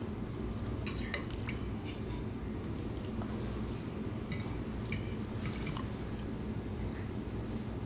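Cutlery clinking against a plate, in two short clusters of clicks, about a second in and again around four to five seconds in, over a steady low hum.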